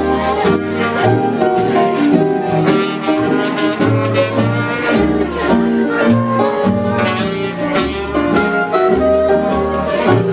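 Live jazz band playing: brass and saxophone over a steady beat and a moving bass line.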